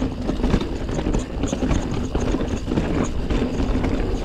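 Commencal Meta TR full-suspension mountain bike running fast down a dirt trail: a steady rush of tyre noise with many small knocks and rattles as the wheels go over rough ground, and wind rumbling on the microphone.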